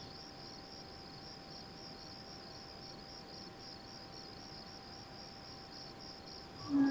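Crickets chirping steadily in a rapid pulsing trill, about four pulses a second, over a faint steady hum. Near the end a short, low, pitched call begins.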